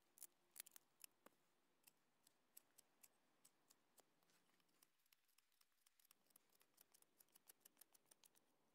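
Knife blade shaving and scraping along a wooden stick being whittled: a faint, irregular run of small clicks and scrapes, coming faster in the second half.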